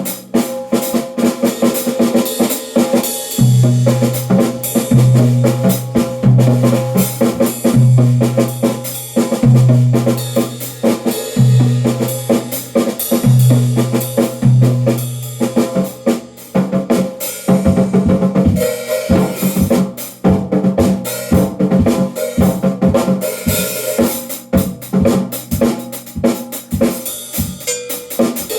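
Drum kit being played in a busy, continuous groove with frequent snare and bass drum hits. Held low notes sound underneath for roughly the first half.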